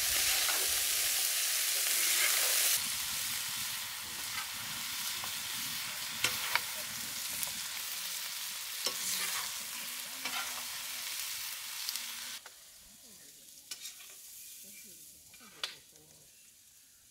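Marinated chicken pieces sizzling in oil and butter on a hot tawa, with the spatula scraping and clicking against the pan as they are stirred. The sizzle drops a little about three seconds in and falls away sharply after about twelve seconds, leaving only faint frying and a few spatula knocks.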